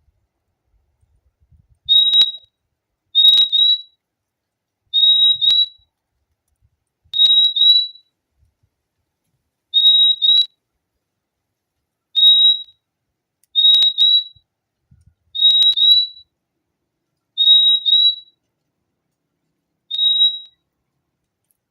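Purple-throated euphonia (fim-fim) calling: a clear, high whistled "fim-fim" of two quick notes, repeated about every two seconds.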